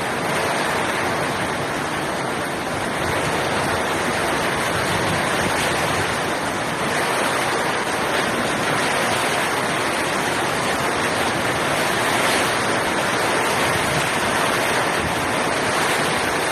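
Heavy typhoon rain pouring down steadily with water rushing, a dense continuous hiss.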